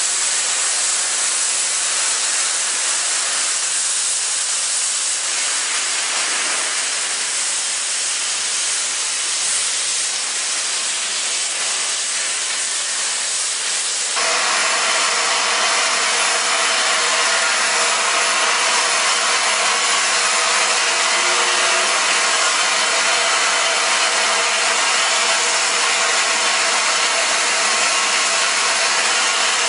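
Steam hissing steadily from LNER A2 Pacific steam locomotive 60532 'Blue Peter' as it stands. About halfway through the hiss jumps louder as a cloud of steam blows over the camera.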